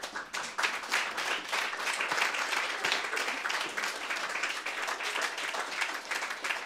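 Audience applauding, many hands clapping together; the applause starts suddenly and keeps up at a steady level.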